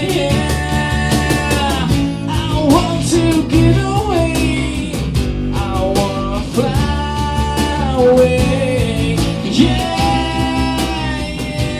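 Live acoustic rock performance: a singer holding long, sliding wordless notes over guitar and a steady beat.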